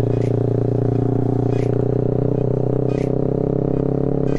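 Motorcycle engine running at a steady low speed as the bike is ridden slowly, its pitch holding level. Faint light ticks come about every second and a half.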